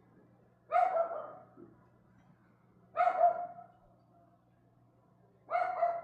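A dog barking three times, single barks a couple of seconds apart.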